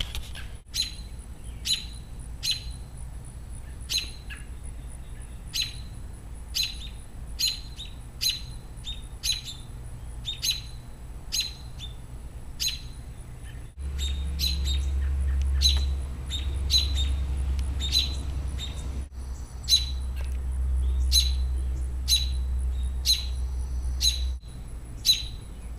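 A bird repeatedly giving a sharp, single chirp about once a second, from the adult birds guarding a fledgling. A low rumble joins in for about ten seconds in the middle.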